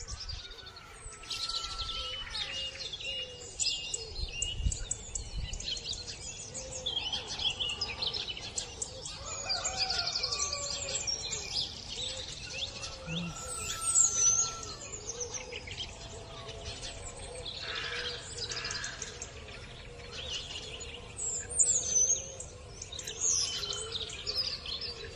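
Many wild birds chirping and singing at once in a morning chorus, with short calls, trills and whistles overlapping throughout.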